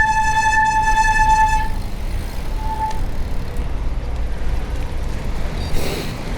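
A horn sounding one steady note: a long blast of about three seconds, then a short blast about a second later, over a low steady rumble.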